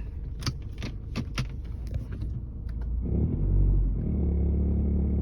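2011 Nissan Altima with a few sharp, irregular clicks over a low engine rumble. About three seconds in, a loud low noise swells and then settles into a steady engine hum. It is one of several noises the owner cannot identify.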